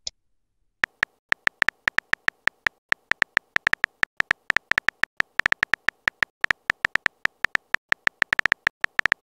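Rapid run of simulated phone-keyboard tap clicks, one per letter as a text message is typed, starting about a second in at an uneven pace of several clicks a second.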